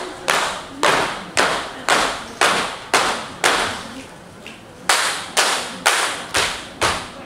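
Ratoh Jaroe dancers clapping and slapping their bodies in unison, sharp strikes about two a second, each ringing briefly in the hall. The beat stops for about a second and a half in the middle, then resumes.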